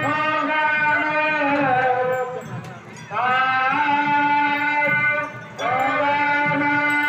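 Reedy wind-instrument music playing long held notes, several of them opening with a short upward slide in pitch. The notes break off briefly about 3 seconds in and again about 5.5 seconds in.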